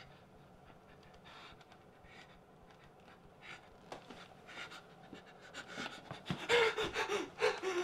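A man breathing hard: faint, slow breaths at first, turning into louder, quicker panting from about five seconds in, with voiced gasps near the end.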